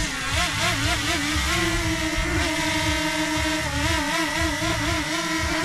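Camera drone hovering close and coming down to land, its propellers giving a steady whine that wavers up and down in pitch as the motors adjust.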